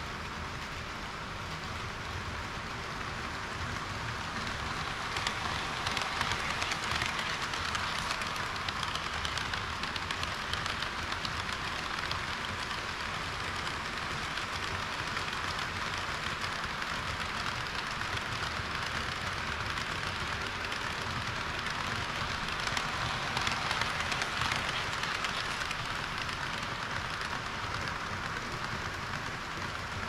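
HO-scale model trains running on sectional track, an EH200 locomotive with a rake of tank wagons and a KiHa 40 railcar: a steady rattling hiss of metal wheels on the rails with fine clicking at the rail joints, swelling twice as trains pass close.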